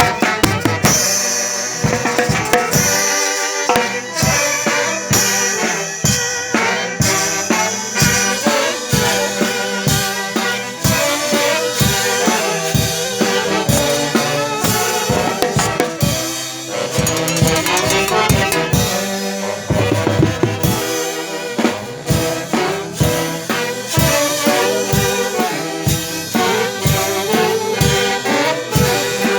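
Band music with brass horns and a drum kit playing a steady, danceable beat.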